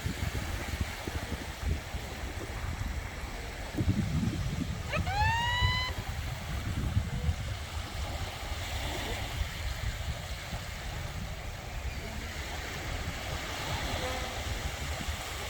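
Sea waves washing on a beach as a steady low rush, swelling a little about four seconds in. About five seconds in, a single rising whistle-like tone lasts about a second.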